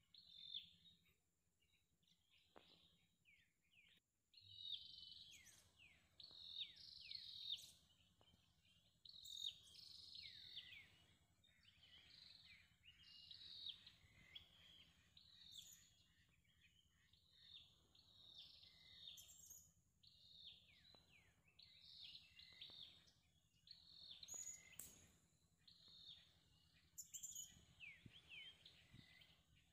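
Faint birdsong: short, quick downward-sliding chirps repeated in clusters about once a second, starting a few seconds in.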